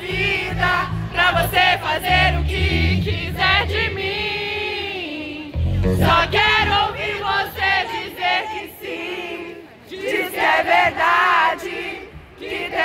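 A crowd of fans singing and chanting together, with one long held note a little before the middle.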